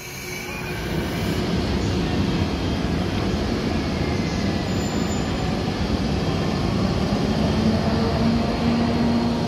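Electric locomotive starting away with its train: a steady rumble that builds over the first second, with a low hum rising in pitch near the end.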